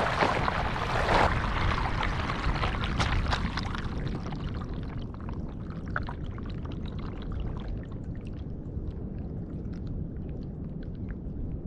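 Water rushing and splashing right at the surface, loud at first and easing after about four seconds to gentle lapping with small drips and trickles.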